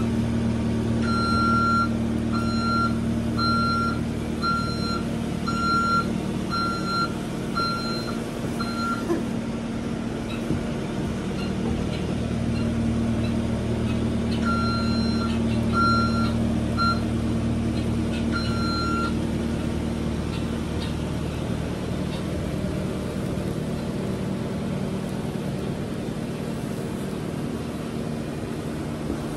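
New Holland skid steer running, its backup alarm beeping evenly about one and a half times a second as it reverses, dragging a straw bale on a tow rope. The beeping stops about nine seconds in, comes back for a few seconds in the middle, then only the engine runs.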